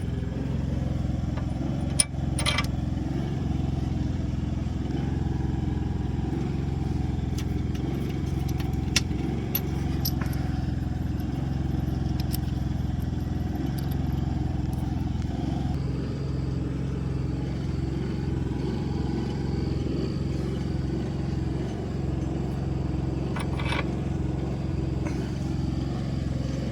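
Steady low mechanical hum like a running engine, holding at one pitch throughout, with a few light metallic clicks and clinks.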